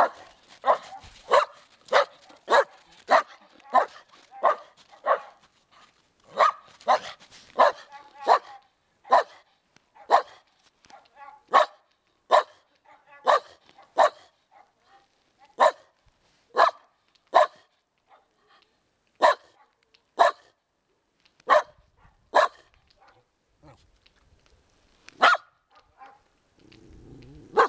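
A dog barking over and over in short, sharp barks: a quick run of about two barks a second at first, then single barks a second or more apart with short pauses between them.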